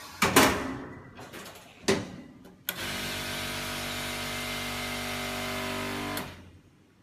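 Formech 300XQ vacuum former: two short loud noises, then its vacuum pump switches on suddenly and runs steadily for about three and a half seconds, drawing the softened HIPS plastic sheet down over the mould, before it stops and runs down.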